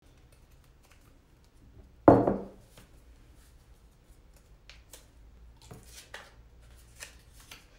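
Small printed paper slips being folded by hand: faint crinkles and light taps scattered through, with one loud thump about two seconds in.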